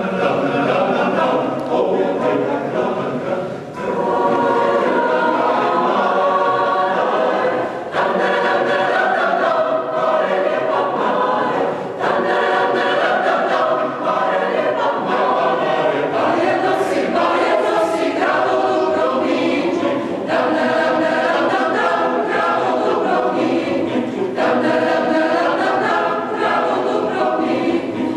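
Large mixed choir of men's and women's voices singing, in phrases with short breaks between them.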